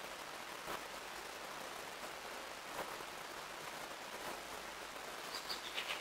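American robin nestlings begging at the nest: a brief run of thin, high peeps near the end, over a steady hiss with a couple of faint clicks.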